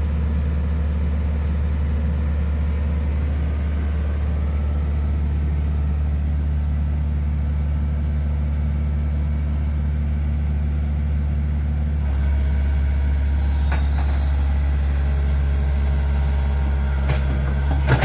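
Mini crawler excavator's diesel engine running steadily as its hydraulics work the boom to right a machine that has thrown a track. About twelve seconds in the engine note deepens and gets a little louder under load, and a few sharp knocks come near the end.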